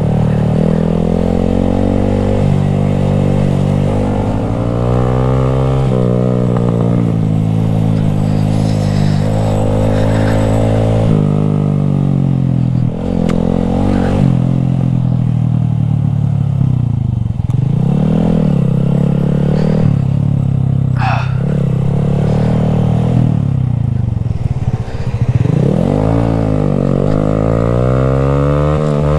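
Honda Grom's small single-cylinder four-stroke engine running while riding, its pitch repeatedly climbing and dropping as it accelerates, shifts and slows.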